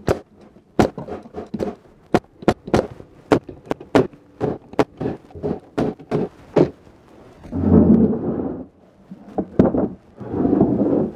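Pneumatic 16-gauge crown stapler firing staples into the finger joints of a wooden beehive super, a sharp crack about twice a second for the first several seconds, then a couple more shots. Twice near the end, a longer rough scraping rumble as the box is shifted on the wooden bench.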